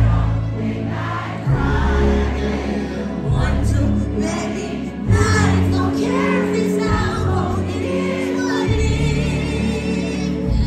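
Live band music at a concert: a female singer over drums and heavy bass, with many voices singing along, heard through a phone's microphone in the crowd.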